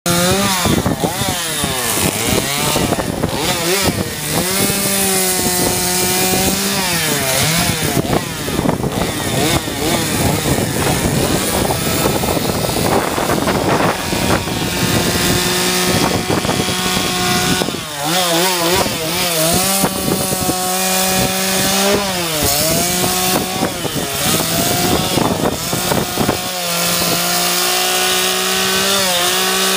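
Chainsaw carving into a wood log, its engine revving up and down over and over, holding a steady high note between the swings in pitch.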